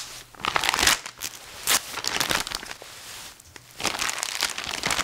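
Plastic crinkling and rustling in irregular bursts as it is handled. There is a lull about three seconds in, then the rustling picks up again and runs on steadily.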